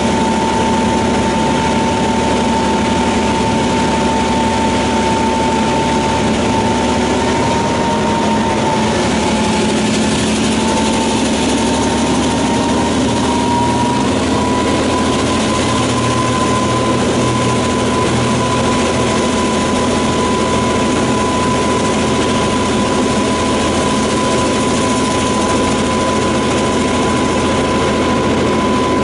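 DQ-class diesel locomotive running under way, a steady engine drone with a high whine that rises slightly in pitch partway through, over a constant rushing noise of the moving train.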